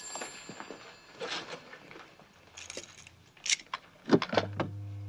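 Soft footsteps and small clicks, then a few sharp metallic clicks at about three and a half to four seconds. A steady low electric hum from a wall-mounted security keypad panel starts just after them.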